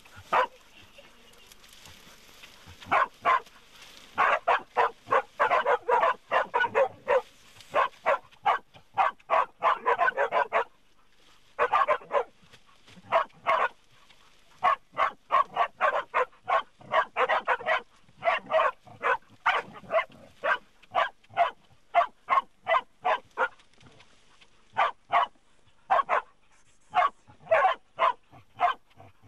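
Pig-hunting dogs barking in rapid runs of several barks a second, with short pauses, as they bay at a hole in the scrub: dogs bailing up hidden game.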